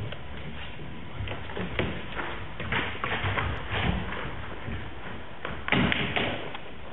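Performers' footsteps and stamps on a stage floor: irregular thuds and taps, with a quick, louder cluster about six seconds in.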